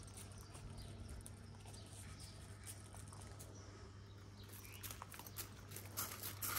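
Faint crunching of footsteps on loose gravel, scattered light steps that grow a little louder near the end, over a steady low hum.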